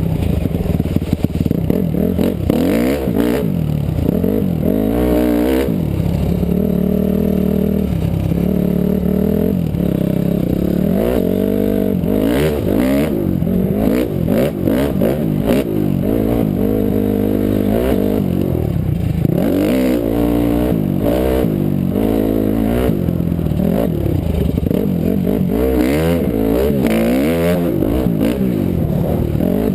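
2006 Honda CRF250R's single-cylinder four-stroke engine being ridden, its pitch rising and falling again and again as it is revved up and backed off, with clattering knocks now and then.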